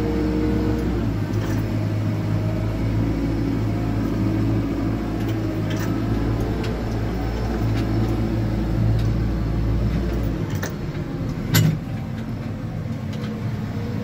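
JCB 4CX backhoe loader's diesel engine running steadily, its note shifting a little about ten seconds in, with a single sharp knock near the end.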